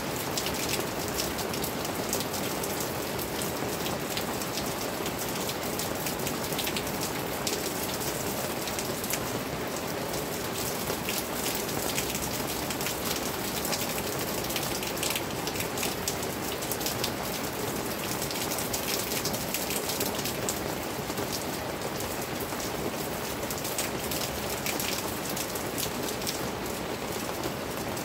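Steady rain: an even, continuous wash with many sharp individual drop hits close by.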